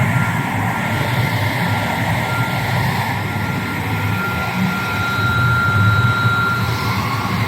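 Vertical flat glass washing machine running: a steady mechanical hum with a thin, steady high whine over it.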